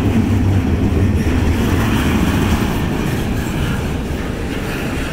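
Loaded container well cars of a long freight train rolling past close by: a steady, loud noise of wheels on the rails that eases slightly over the second half.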